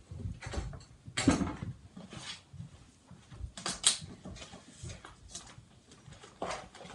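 Books, binders and pencil cases being picked up and handled on classroom desks: scattered knocks, thumps and rustles, the loudest about a second in and again just before four seconds.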